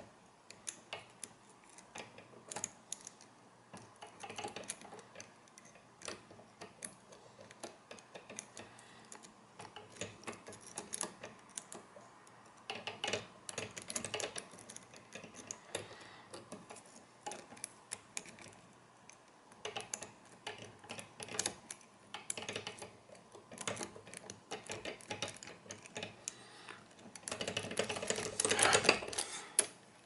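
A lockpick and tension tool bent from a hairclip working the pins inside a brass padlock: irregular small metallic clicks and scrapes. Near the end comes a louder, denser stretch of scraping and rattling.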